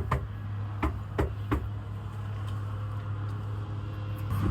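A vehicle engine runs with a steady low hum. About four sharp thuds land in the first second and a half.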